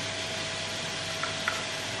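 Steady sizzling hiss of mushrooms and tofu frying in a pan as shredded cabbage goes in, with a faint steady whine underneath and two light taps in the second half.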